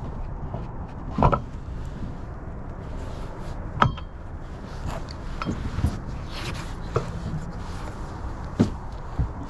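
Scattered knocks and clunks of a car's spare wheel being pushed into place under the car, one with a brief metallic ring about four seconds in, over a low steady rumble.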